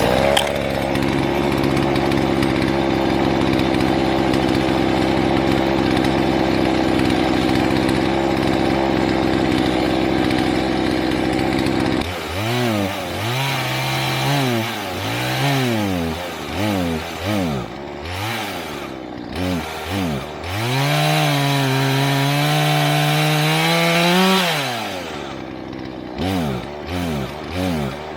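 Two-stroke chainsaw running at a steady speed for about twelve seconds. Its throttle is then blipped again and again, with the engine speed rising and falling, held up for a few seconds, dropping back, and given a few short blips near the end.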